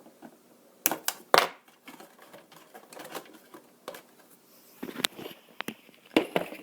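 Hands working LED wires into an RC truck body: a series of sharp clicks and taps, the two loudest about a second in and more near the end, with light rustling and handling between.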